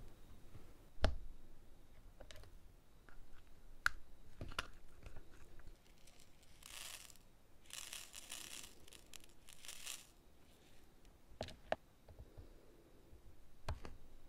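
Round diamond-painting drills are pressed onto the sticky canvas with a drill pen, making a few soft clicks. About halfway through, loose round drills are poured and shaken in a plastic sorting tray, three short bursts of rattling.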